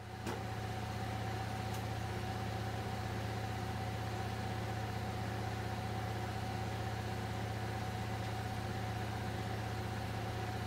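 Steady low mechanical hum with a faint steady higher tone above it, fading in at the very start.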